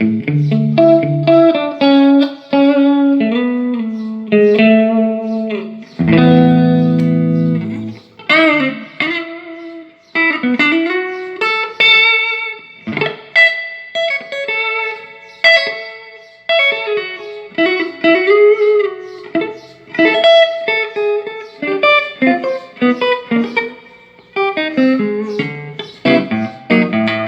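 Electric guitar played through a Peavey Classic 30 all-tube combo amp, working again after a repair. The player mixes single-note lines with bent notes and strummed chords, with one chord left ringing about six seconds in.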